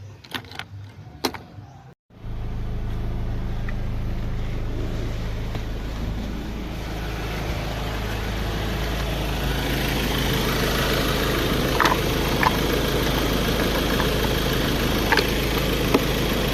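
A 2015 Ford Ranger's engine idling steadily, now starting after its corroded fuse-box relays were cleaned to cure a no-crank fault. A few short clicks come just before the engine sound, and it grows slightly louder partway through.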